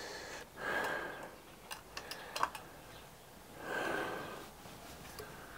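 Two slow, soft breaths about three seconds apart, with a few light clicks in between from handling the broken-open break-barrel air rifle while it is loaded.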